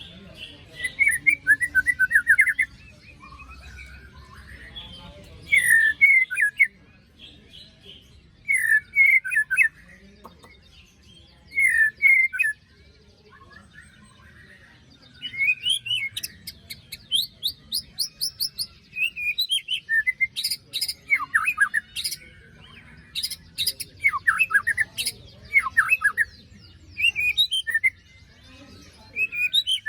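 White-rumped shama singing: short phrases of rapid repeated notes with harsh, rasping 'besetan' notes, separated by pauses of a second or two at first and running almost continuously from about halfway.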